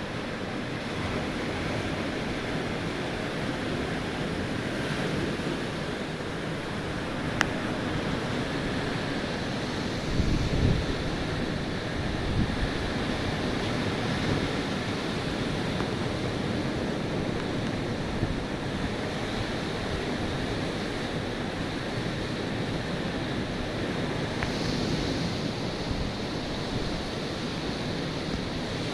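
Ocean surf washing steadily onto a beach, with wind buffeting the microphone in gusts. There is a single sharp click about a quarter of the way in.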